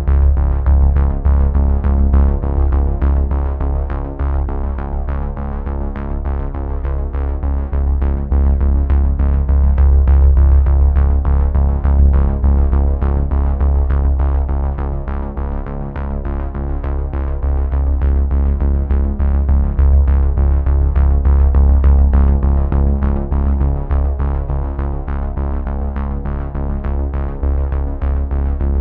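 Synthesizer background music: sustained chords over a deep bass, with a fast, even pulse of soft notes.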